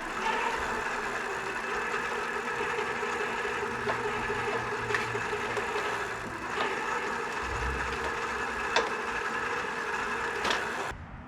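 E-bike drivetrain running with the rear wheel spinning: a steady mechanical whir from the motor and the chain over the sprockets, with a few light clicks, stopping abruptly near the end.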